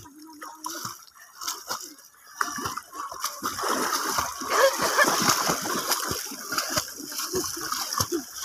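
Children swimming in shallow seawater close by, paddling and splashing. The first two seconds or so are fairly quiet, then there is a steady run of irregular splashes.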